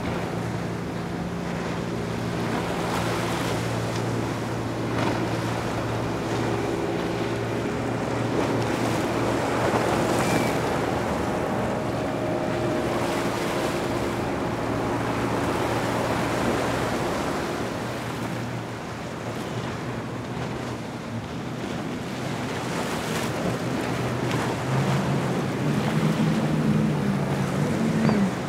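Motorboat engines running through the inlet over the wash of waves, with wind on the microphone. One boat's steady engine drone fades away about two-thirds of the way through, and another boat's engine comes in near the end.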